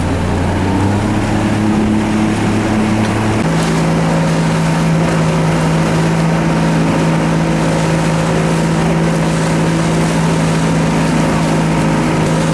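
Motorboat engine running steadily, with water and wind noise; its hum steps up in pitch about three and a half seconds in.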